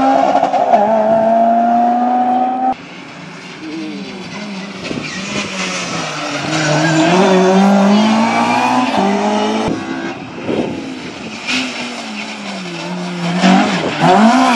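Rally cars' engines revving hard as they drive along a tarmac stage, engine pitch climbing and dropping again and again as the cars accelerate and change gear. About three seconds in the sound drops suddenly to a quieter, more distant car, and it jumps back to a loud, close engine near the end.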